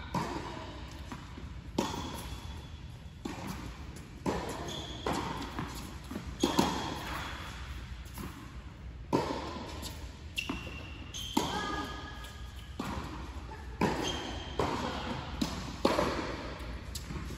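Tennis rally on an indoor hard court: rackets striking the ball and the ball bouncing, a sharp pop about every one to two seconds, each echoing through the hall. Short high squeaks come between the shots.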